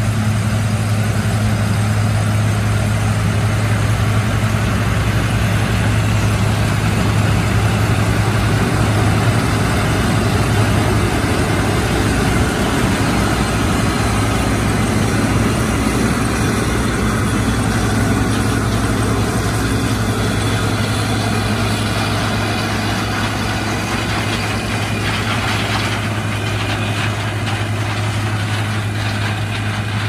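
John Deere 9760 STS combine harvesting corn: its diesel engine and threshing machinery running steadily with a deep, constant hum under a wash of mechanical noise. It passes close by and grows slightly quieter in the last third as it moves away.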